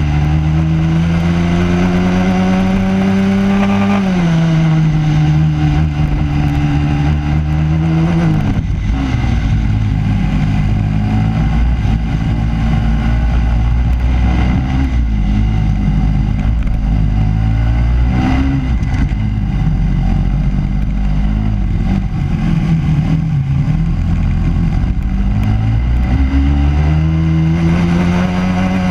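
Racing kart engine heard from onboard, its pitch climbing under acceleration, dropping sharply about four seconds in and again around eight seconds as it lifts for corners, wavering lower through the middle and climbing again near the end.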